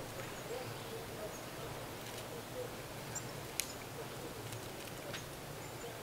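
Eurasian nuthatch tapping at pine bark with its beak while hanging head-down on the trunk: a few sharp, sparse taps, the loudest about halfway through, over faint forest ambience. Faint high bird peeps sound now and then in the background.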